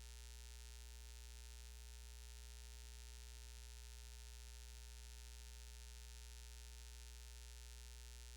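Faint, steady electrical mains hum with a light hiss, unchanging throughout.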